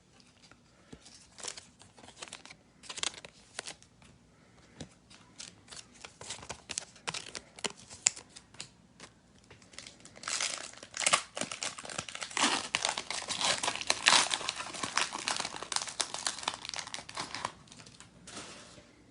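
Foil trading-card pack wrapper being crinkled and torn open: scattered crackles at first, then a dense stretch of crinkling and tearing from about ten seconds in that dies away near the end.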